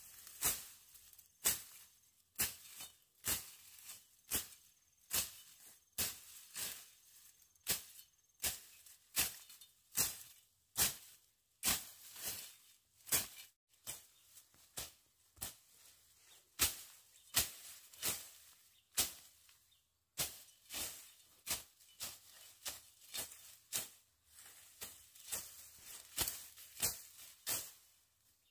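Steady rhythm of short, sharp scraping strokes, about two a second, with a couple of brief pauses.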